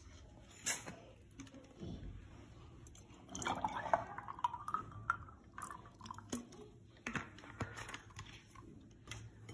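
Iced milky coffee poured into a glass over ice cubes: a stream of about two seconds, starting about three and a half seconds in, rising in pitch as the glass fills. A few light clicks sound before and after it.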